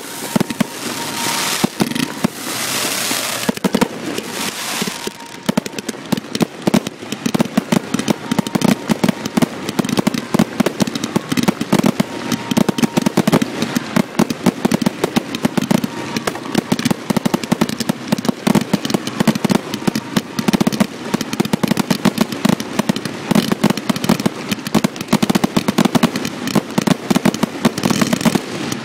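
Aerial fireworks shells bursting in rapid succession at close range, a dense run of bangs and crackling with a hissing stretch in the first few seconds.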